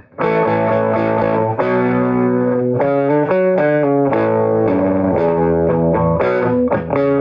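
Electric guitar played through a hand-built single-ended 6L6 tube amp with a 6SL7 preamp tube. It plays ringing chords that change about once a second, each new chord struck sharply.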